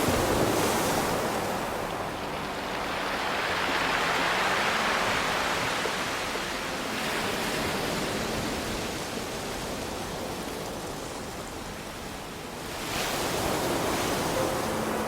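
Ocean waves surging onto a pebble beach: a hissing wash that swells and falls back slowly, peaking at the start, around the middle and again near the end. Faint soft music notes sit underneath near the start and end.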